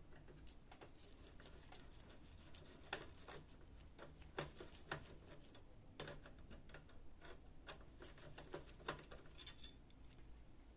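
Faint, irregular clicks and light taps of plastic parts and cable connectors being handled inside a laser printer during disassembly.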